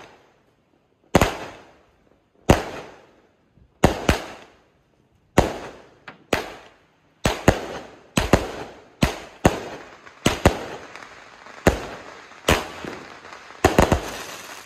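A 4-inch 25-shot cake firework firing its shots one after another, each a sharp bang with a fading echo. The bangs come about every second and a half at first, then faster and often in pairs, bunching together near the end.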